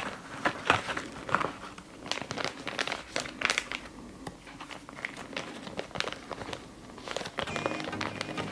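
Plastic and paper packaging of a DNA test kit crinkling in irregular crackles as it is handled and folded. Soft background music comes in near the end.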